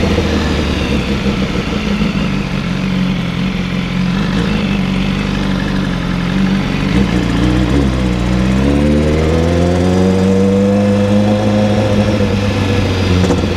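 Vehicle engine fitted with a loud aftermarket 'granada' exhaust running steadily. About eight seconds in its pitch dips, then climbs and levels off as it accelerates.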